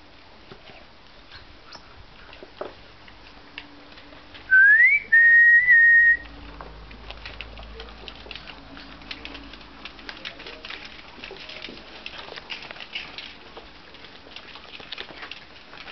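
A whistle calling the doodle puppies: a short rising note, then a held steady note about a second long, about four and a half seconds in. Around it, faint scattered clicks and patter of the puppies' paws on the patio paving.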